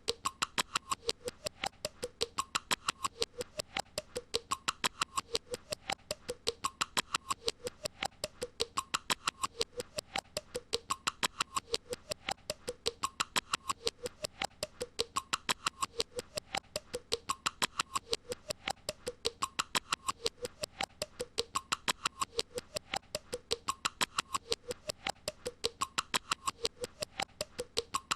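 A looped, mechanical-sounding pattern of rapid even clicks, about four a second, with a short pitched figure repeating about once a second.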